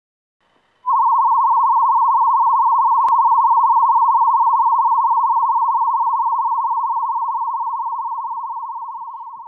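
A 1 kHz warble calibration tone from an Amplivox Model 270+ diagnostic audiometer, played over a free field speaker for free field calibration. It starts about a second in as one steady tone that wavers rapidly and evenly in pitch, and it slowly gets quieter over the second half. There is a faint click about three seconds in.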